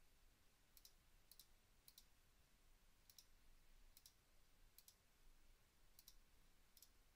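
Faint computer mouse clicks, about eight of them a second or so apart, each a quick double tick.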